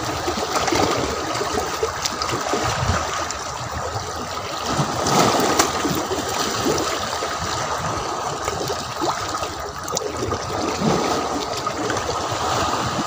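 Shallow seawater washing and lapping around shore rocks and a concrete piling: a steady rush of small waves, swelling a little about five seconds in.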